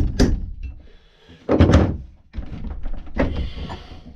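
Blows knocking stuck pieces of the old hickory handle out of an axe head's eye. There is a sharp strike at the start, a heavier thunk about a second and a half in, then lighter clattering knocks.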